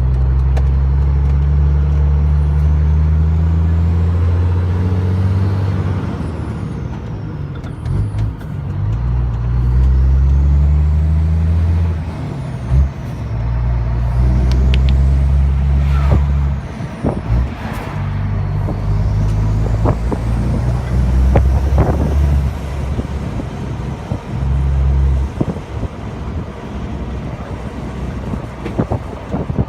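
Renault Magnum 440 E-Tech truck's 12-litre Mack E7-based diesel pulling under load, the engine note breaking off and picking up again at each of several gear changes of the manual ZF 16S gearbox. A faint turbo whistle rises and falls between shifts, with a few sharp clicks around the middle.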